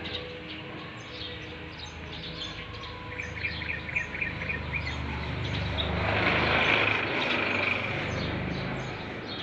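Birds chirping, with a quick run of about six chirps a little after three seconds in. A vehicle passes, its rumble and road noise rising to the loudest point around six to seven seconds in and then fading.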